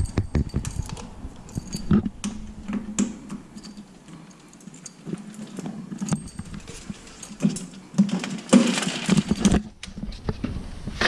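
A bunch of keys jangling, with scattered metallic clicks as keys are tried in the lock of a coin-operated candy vending machine. There is a longer burst of rattling near the end.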